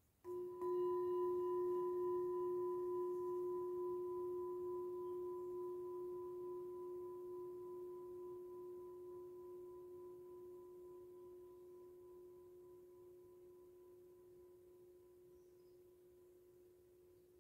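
Metal singing bowl struck once about half a second in, ringing with one clear steady tone and fainter higher overtones that fade away slowly and evenly.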